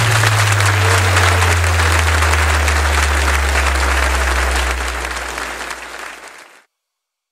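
Audience applauding, with a low bass note from the end of the music ringing on beneath it. The applause fades and cuts off suddenly about six and a half seconds in.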